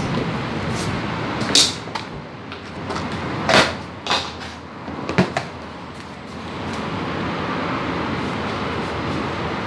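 Steady whoosh of an electric stand fan running, dipping for a few seconds and then rising again. Four sharp clacks or knocks come between about one and a half and five seconds in.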